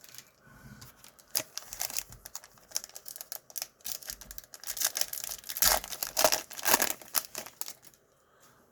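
A trading-card pack wrapper being crinkled and torn open by hand, with a run of sharp crackles that is loudest and densest a little past the middle and dies away near the end.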